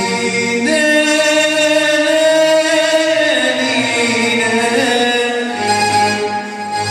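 Live Arabic band music: a male singer holds long sung notes over keyboard and hand-drum accompaniment, recorded from the audience.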